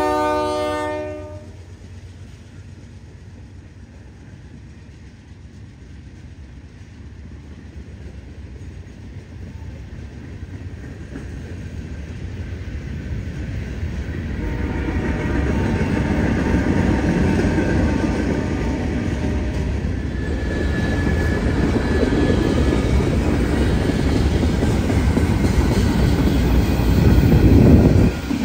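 Diesel locomotive horn, a chord of several tones, cutting off about a second in, then the rumble and wheel clatter of a passing freight train's cars, growing steadily louder as the cars roll by close.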